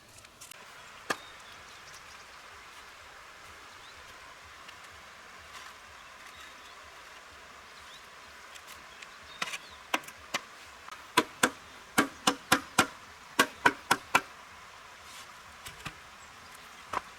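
Sharp knocks or strikes, a few scattered ones and then a quick run of about ten, roughly three a second, over a steady high hiss.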